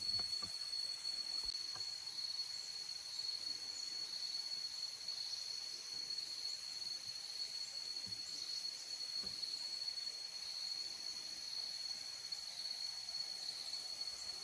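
Steady chorus of insects in the trees: one continuous high-pitched shrill drone that holds without a break, with a few faint soft knocks underneath.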